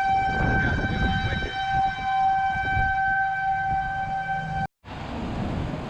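Outdoor civil-defense warning siren holding one steady pitch over a low rumble of wind. It cuts off abruptly about three-quarters of the way through, leaving only a hiss of wind.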